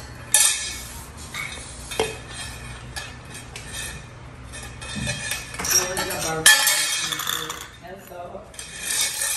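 Stainless steel kitchenware, a small colander and a metal lid, clattering and scraping on a concrete floor as it is knocked and pushed about. There are several sharp metallic clangs, the loudest about six and a half seconds in.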